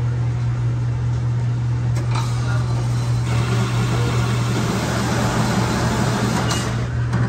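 Semi truck's diesel engine running with a steady low hum, and a couple of faint clicks.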